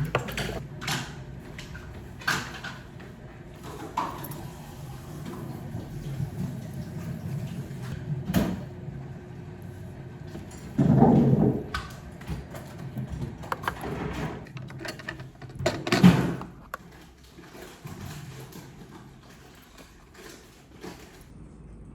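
Kitchen handling sounds: scattered knocks and clicks, with two louder noises about a second long, near the middle and about two-thirds of the way through.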